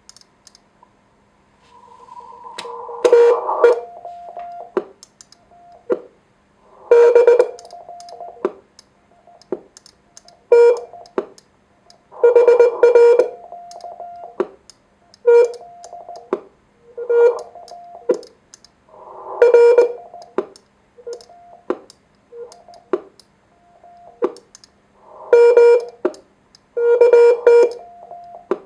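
Morse code being sent with a paddle on a homebuilt 1Watter QRP transceiver, heard as keyed beeping tones broken by loud pops every few seconds. The pops come from the receiver's AGC overloading on strong nearby signals while transmitting, so it is pumping and popping.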